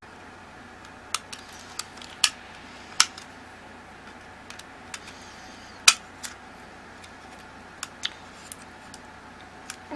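Irregular sharp clicks and taps of small tools and parts being handled while a Canon IXY 150 compact camera is taken apart, over a steady faint hiss.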